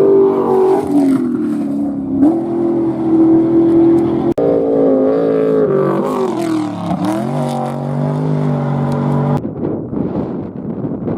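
Off-road race vehicle engines running hard and revving, the pitch shifting up and down with a brief dropout about four seconds in. Around seven seconds in, one engine's note drops and climbs again. Near the end the engine tone gives way to a rougher rushing noise.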